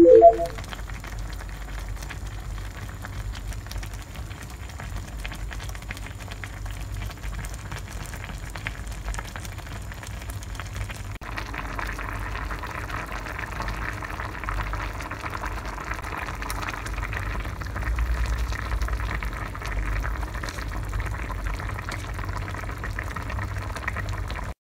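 Korean spicy braised chicken stew (dakbokkeumtang) bubbling at a boil in a pan on a portable gas stove, a steady crackly bubbling over a low rumble. The bubbling gets louder about eleven seconds in. A short pitched chime sounds right at the start.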